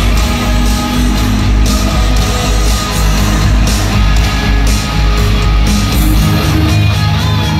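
Loud hard rock music with electric guitar and heavy bass, played through a concert's sound system and recorded from the audience.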